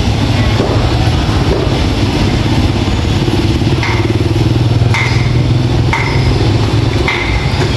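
A motorbike engine running close by. From about halfway through, a series of short high-pitched sounds comes roughly once a second.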